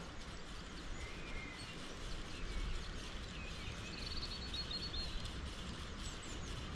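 Steady outdoor background noise with a low rumble, and faint birds chirping, including a short trill about four seconds in.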